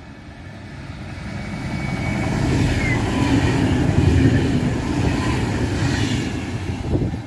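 Two coupled DB class 612 diesel tilting multiple units running through the station at speed: diesel engines and wheels on the rails, growing louder as the train approaches, loudest about four seconds in as the cars pass close by, then easing slightly.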